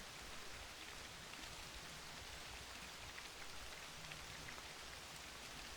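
Steady rain, a faint, even hiss with a light patter of drops.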